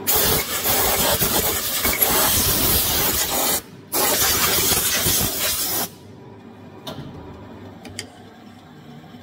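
Compressed air blasting metal swarf off a lathe's cross slide and the freshly tapped part: a long hiss, a brief break, then a second shorter hiss, followed by a couple of light clicks.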